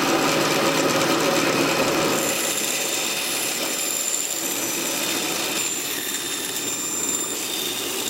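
Small drill running steadily with a high motor whine, driving the lathe spindle at slow speed through a wooden adapter fitted with a driver bit. The whine changes slightly about five and a half seconds in.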